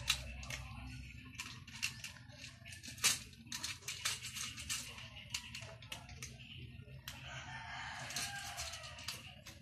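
A cat crunching dry kibble from a steel bowl: a run of sharp, irregular crunches and clicks.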